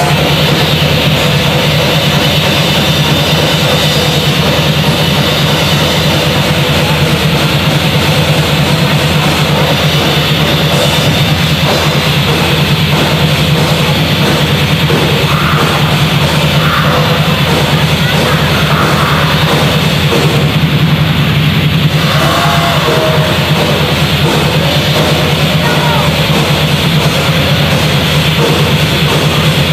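Black metal band playing live at full volume: distorted electric guitar through amplifiers over a drum kit, a dense, unbroken wall of sound.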